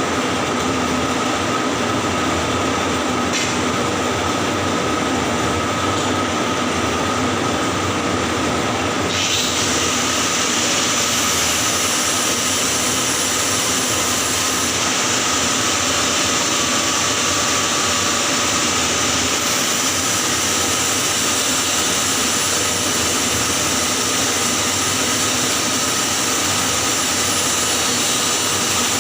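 Electric arc welding on a pipe joint in the 6G position: a steady, loud crackling hiss from the arc that turns brighter and sharper about nine seconds in.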